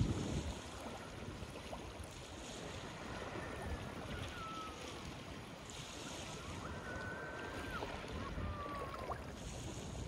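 Small sea waves lapping against concrete seawall steps, an even wash of water noise, with wind buffeting the microphone in a low rumble at the start.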